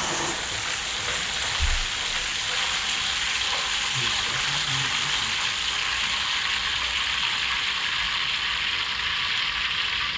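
Chicken wings deep-frying in hot oil: a steady sizzle.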